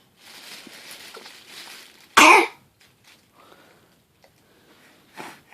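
A single short, loud cough about two seconds in, after a softer breathy noise, with a fainter cough-like sound near the end.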